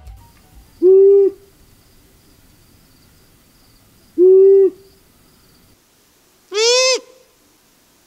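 Long-eared owl calls from a field recording: two low, even hoots about three seconds apart, then a higher call near the end that rises and falls in pitch.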